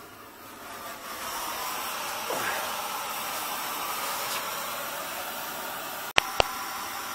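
Steady hiss of a small gas burner flame under a kettle, swelling about a second in. Two sharp clicks a quarter second apart near the end.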